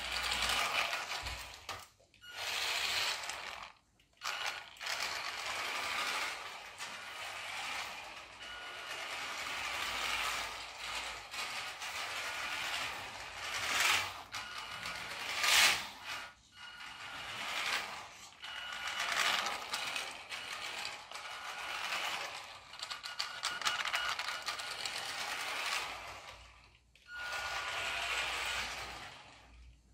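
The small scavenged brushed electric motor and drivetrain of a converted toy-grade RC car whirring as it drives about, its hard plastic wheels rolling on a laminate floor. It runs in spurts, dropping away briefly a few times.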